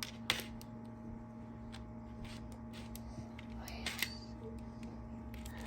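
Plastic Lego parts of a homemade vending machine clicking as its lever is pulled to release an item: one sharp click about a third of a second in, then a few quicker clicks around four seconds in.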